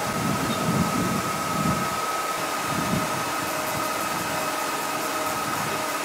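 Steady hum of sawmill machinery running, with a constant high whine over it.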